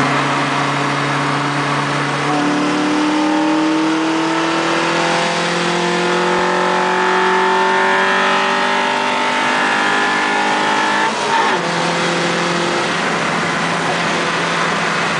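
Honda H22 four-cylinder engine pulling hard in fourth gear, heard from inside the car. About two seconds in its tone changes abruptly as VTEC engages, then the pitch climbs steadily as the revs rise. About eleven seconds in there is a brief rough break and the revs drop to a lower, steady note.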